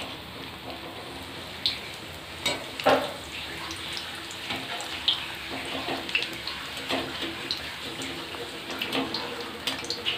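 Batter-coated cauliflower fritters deep-frying in hot oil in a steel kadai: a steady sizzle with frequent sharp crackles and a few louder pops.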